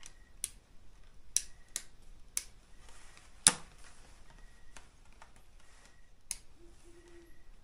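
Irregular sharp clicks and taps, about a dozen, with one much louder click about three and a half seconds in, in a small quiet room. A faint short hum comes near the end.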